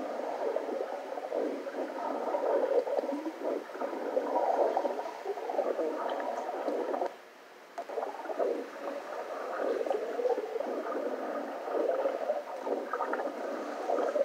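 Muffled gurgling and sloshing underwater audio from a swim video, played back through small computer speakers, thin with no deep bass. It drops out for about half a second midway through.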